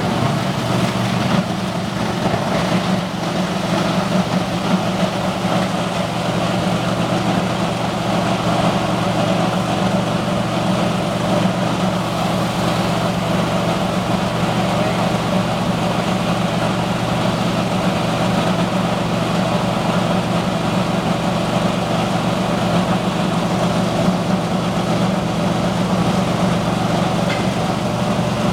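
Plastic grinder running steadily: a continuous machine hum with a broad noise over it.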